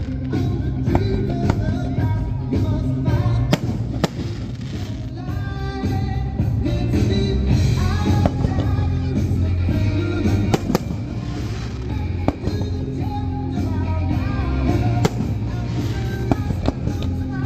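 Fireworks display: comets and shells launching and bursting in scattered sharp bangs, over loud music with singing.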